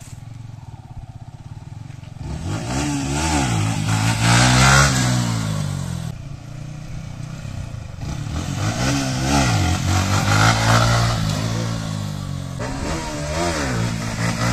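Sport motorcycle engine ticking over, then revved hard in several surges, each rising and falling in pitch, as the rider pulls wheelies.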